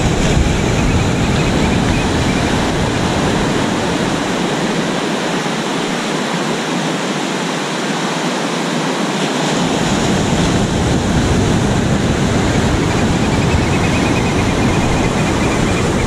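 Surf breaking and washing up over the sand, a loud steady rush, with wind buffeting the microphone; the low wind rumble drops out for a few seconds in the middle.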